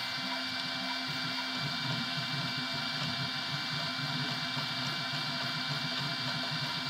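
3D printer at work: its stepper motors whir in short, shifting tones as the nozzle lays down filament, over a steady hiss.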